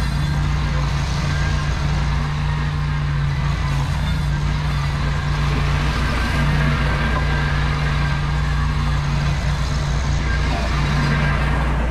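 Ventrac compact tractor's engine running at a steady speed, a constant low hum with dense machine noise over it.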